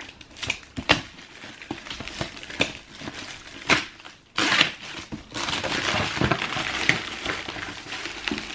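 Tissue paper crinkling and rustling while a cardboard shoebox is handled and opened, with sharp clicks and knocks among the rustle and a longer stretch of steady rustling about five seconds in.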